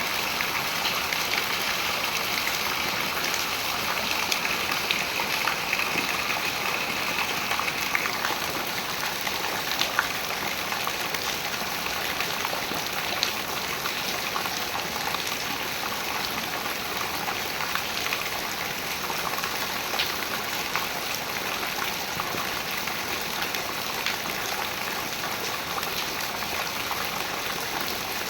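Rain falling onto the water of a reservoir: a steady hiss of drops with scattered sharper splashes. A higher-pitched rushing layer stops about eight seconds in.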